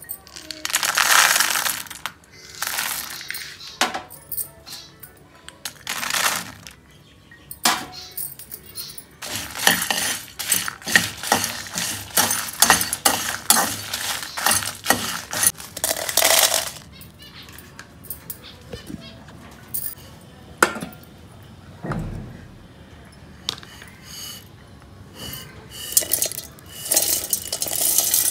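A metal spatula scraping and clattering in a wok as dried red chillies, lentils and onion pieces are stirred while they roast, in runs of separate strokes, with background music. Near the end the roasted mix rattles as it is tipped into a steel mixer jar.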